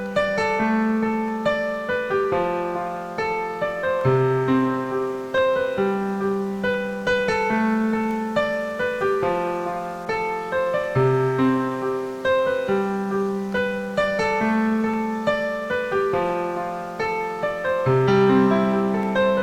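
Background piano music: a steady flow of single notes over held bass notes that change every second or two.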